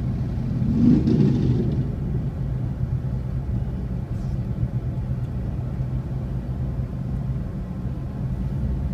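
Steady low engine rumble of slow motorcycle and car traffic, heard from inside a car, with a louder swell about a second in as a motorcycle passes close by.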